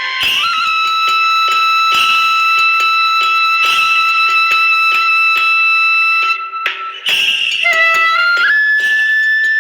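Background music: a long held melody note over a steady beat. After a short break near the end, the melody steps up in pitch.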